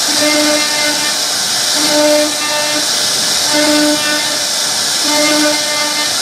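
CNC router spindle carving a repeating relief pattern into a wooden panel: a steady high hiss with a pitched hum that swells and fades in a regular cycle about every 1.7 seconds as the bit works through the pattern.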